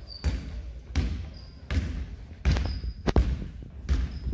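A basketball dribbled on a hardwood gym floor, about five bounces roughly every three-quarters of a second, with short squeaks of sneakers on the floor.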